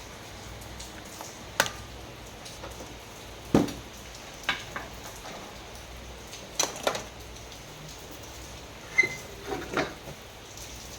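Irregular sharp clicks and knocks of small hard parts and tools being handled, about eight in all, some in quick pairs, over a steady faint hiss.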